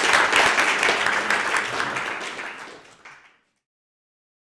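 Audience applauding, the clapping dying away and then cutting off into silence about three seconds in.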